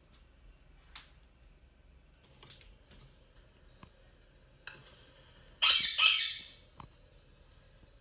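Indian ringneck parakeet giving one loud, harsh squawk in two quick parts, about a second long, a little past the middle. A few faint clicks come before it.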